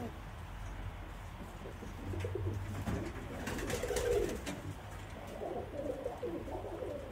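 Domestic pigeons cooing: a run of low, warbling coos, about two, four and six seconds in.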